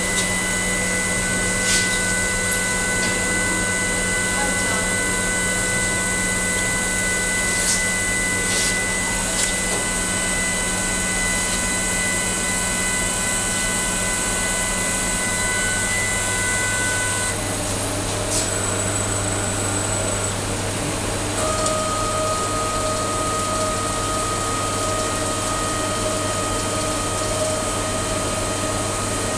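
Errepi Vittoria 1600 automatic machine running: a steady hum with several steady whining tones and a few light clicks. The whine changes about 17 seconds in, dropping out and returning a few seconds later at a different pitch.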